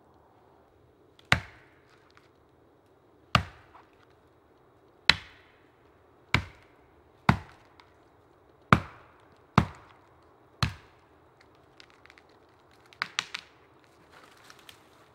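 Axe chopping into a standing pine trunk: eight single sharp blows, one to two seconds apart. They are followed about thirteen seconds in by three quick, lighter knocks.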